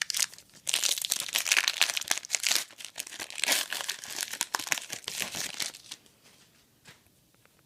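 Foil wrapper of a trading card pack crinkling and tearing as the pack is opened, for about five seconds, then a few faint clicks of cards being handled.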